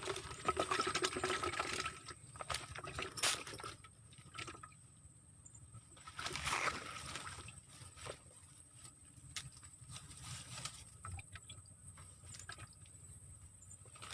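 Water splashing and sloshing in short bursts, strongest in the first two seconds and again about six seconds in, with scattered small clicks.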